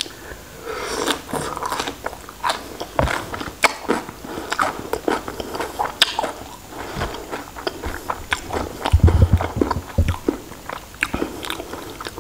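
Close-miked eating of raw shrimp: wet chewing, biting and lip smacks, with many small clicks. A few low thumps come about nine seconds in.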